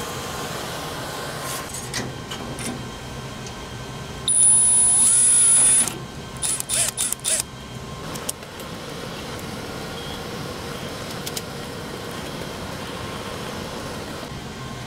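Steady hum of rack equipment fans and air conditioning. A little over four seconds in, a power drill-driver gives a loud, high whine for about a second and a half. Scattered clicks and knocks of cables and rack hardware being handled follow.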